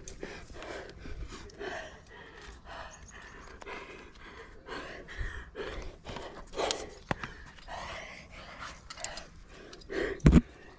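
A rock climber panting hard with exertion, in quick, ragged breaths, high on a sport route. A loud thump comes near the end.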